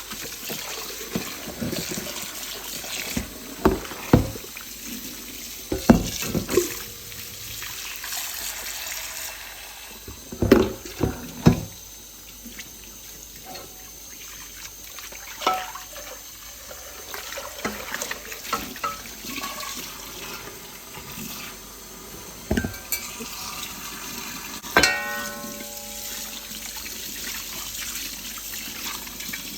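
Kitchen tap running while an enamelled cast-iron pot is rinsed and washed in the sink, with repeated knocks of the heavy pot against the sink and one short ringing clang late on.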